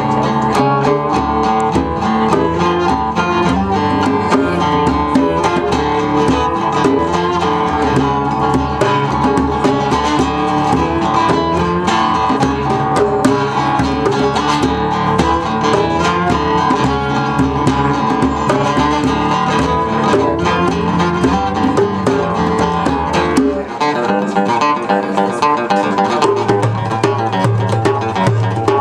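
Live instrumental music from a small band, led by busily picked acoustic strings. About three-quarters of the way through, the deep bass drops out for a couple of seconds, then a low note comes back in.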